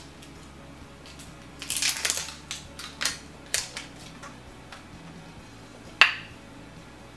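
Handling a plastic lotion tube: rustling and light plastic clicks, then one sharp plastic snap about six seconds in as its flip-top cap is opened.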